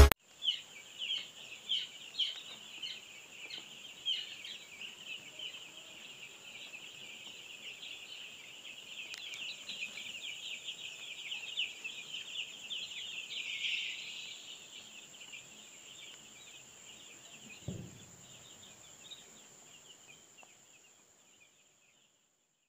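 Young chicks peeping rapidly and continuously, many calls overlapping, dying away over the last few seconds, with a faint steady high whine under it and one low thump near the end.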